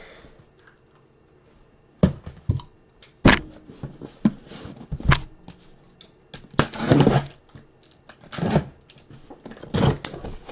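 Cardboard master case of trading-card boxes being opened and handled: a run of sharp knocks and thuds starting about two seconds in, mixed with short stretches of cardboard scraping and rustling.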